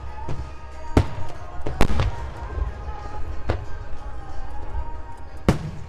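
Aerial firework shells bursting in a string of sharp bangs, about six in under six seconds, the loudest about two seconds in, over a continuous low rumble.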